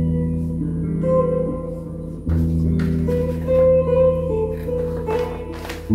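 Electric guitar played live in the room: sustained chords and picked notes over a low bass note, with a chord change about two seconds in.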